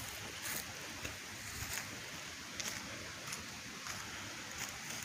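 Footsteps crunching through dry grass and fallen leaves on a creek bank: a string of soft, uneven crunches about every half second to second, over a steady faint outdoor background noise.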